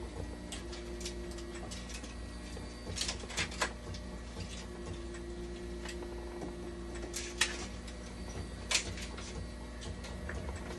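Dialysis machine running with a steady low hum and a steady tone that switches on and off twice, with a few sharp clicks scattered through.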